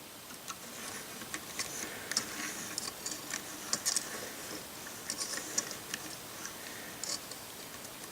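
Light, irregular clicks and taps of small LEGO plastic pieces being handled: a minifigure's arm and the snowmobile's parts moved by hand.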